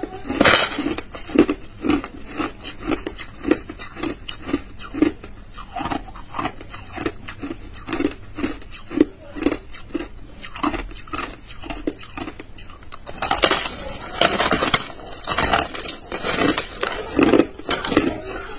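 Crushed ice crunching between teeth as it is bitten and chewed, in steady crunches about two a second, with a denser run of loud crackly crunching about two-thirds of the way through.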